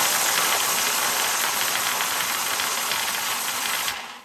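Compressed-air blow gun blasting a steady hiss of air into a plastic bottle raffle machine, whirling the small balls inside; the air cuts off near the end.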